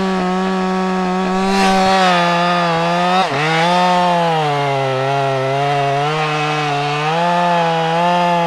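Two-stroke chainsaw at full throttle cutting into the trunk of a standing pine, its pitch sagging and recovering as the chain takes the load. There is a brief dip in the engine about three seconds in.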